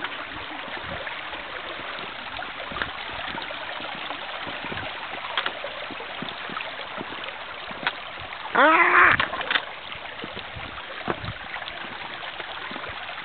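Shallow water running and splashing among the stones of a flooded rocky footpath, with scattered clicks of footsteps on wet stones. About nine seconds in, a short loud voice-like call with a rising-then-falling pitch.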